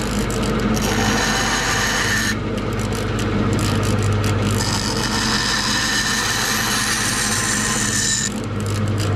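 Bandsaw running with a steady motor hum while its blade cuts short, straight relief cuts into a thick wooden board. The cutting noise stops and starts, easing off about two seconds in and again near the end.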